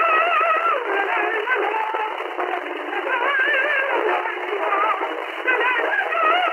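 A 1936 recording of a young soprano singing a Swedish folk song, her voice held on long notes with a wide vibrato. The sound is thin and tinny, like an old disc transfer, with no bass and no top.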